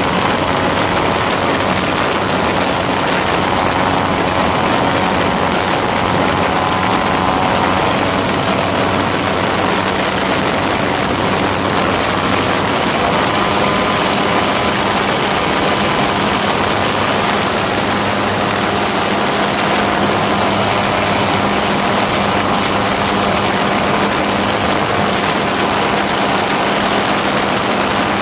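Hirth F33 single-cylinder two-stroke engine running steadily and driving the propeller of a MiniMax ultralight in flight, with a loud rush of air over the helmet-mounted microphone in the open cockpit.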